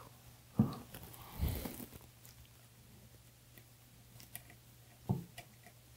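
Soft knocks and small clicks from handling a loudspeaker woofer and its wires at the cabinet's cutout. One knock comes about half a second in, another near five seconds, with scattered light ticks between, over a faint steady hum.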